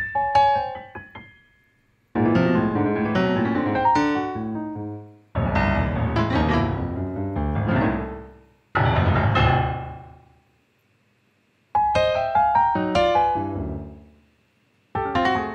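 Piano played back from a MIDI sequence: about six clusters of quick, scattered notes spread from deep bass to high treble. Each cluster lasts two to three seconds, then rings out and dies away, with short silences between some of them.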